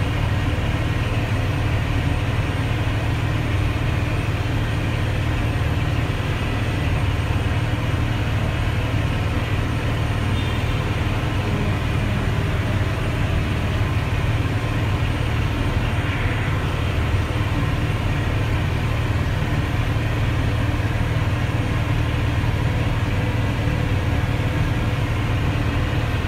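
Caterpillar 966G wheel loader's diesel engine running steadily as the loader drives along the road, heard from inside the cab.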